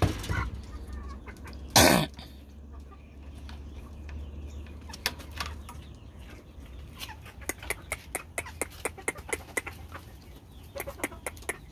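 Rooster clucking, with one short loud call about two seconds in, then a run of quick sharp clicks and taps.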